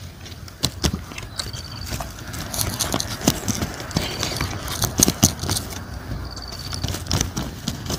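Eating sounds by hand close to the microphone: irregular lip smacks, finger sucking and chewing clicks. A short high chirp recurs about every two seconds behind them.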